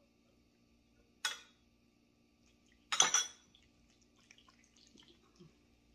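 Glass kitchen bowls knocking: two sharp clinks, a little over a second in and a louder one about three seconds in, followed by faint small clicks and rustles of handling.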